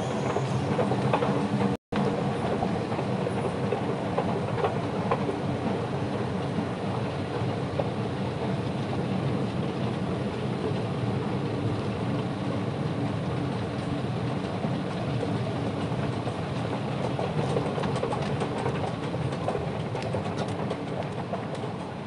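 Singapore MRT Circle Line train running between stations, heard from inside the carriage: a steady rumble of wheels on rail with a low motor hum. The sound cuts out for a moment about two seconds in.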